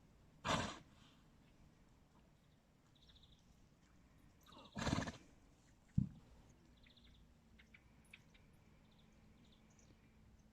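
A horse gives two short, loud, breathy vocal blasts about four seconds apart, the noises it makes while rolling. A single sharp thump follows about a second after the second blast.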